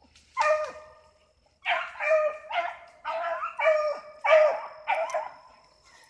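Rabbit hound baying from the brush: one bay, then after a short pause a run of about seven bays in quick succession, each dropping in pitch at the end. This is the hound giving voice on a rabbit's trail.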